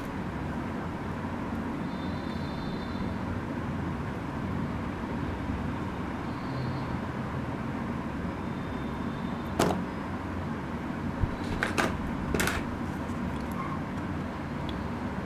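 Toy animal figures being handled in a cardboard box: a few sharp knocks and clicks about ten to twelve and a half seconds in, over a steady low background noise.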